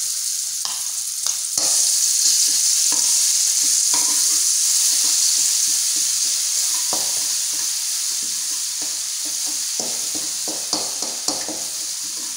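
Chopped chilli, garlic and shallot sizzling in hot oil in a wok, with a spatula scraping through the mixture as it is stirred.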